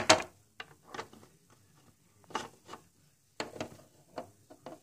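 Small plastic toy pet figures being handled and set down on a plastic playset floor: a scatter of light clicks and rubs with short pauses between.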